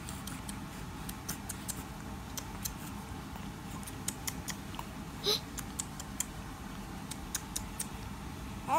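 Faint scattered clicks and light taps at an irregular pace, with one short louder sound about five seconds in.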